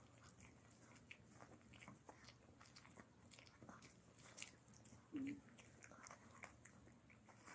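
Long-haired Chihuahua gnawing a dental chew stick: faint, scattered crunching clicks of teeth on the chew, with one short low-pitched sound about five seconds in, the loudest moment.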